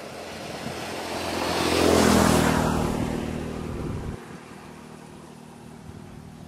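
A motor vehicle's engine passing by: it grows louder to a peak about two seconds in, fades, and cuts off suddenly about four seconds in.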